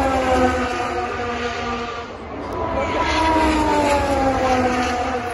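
Two Formula 1 cars going past one after the other, their 1.6-litre turbocharged V6 engines at high revs. Each engine note falls steadily in pitch as the car passes: the first near the start, the second from about halfway through.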